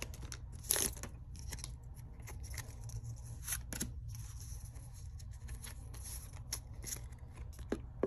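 Foil Pokémon booster pack wrapper crinkling and cards sliding as a pack is emptied: a string of light rustles and clicks over a low steady hum.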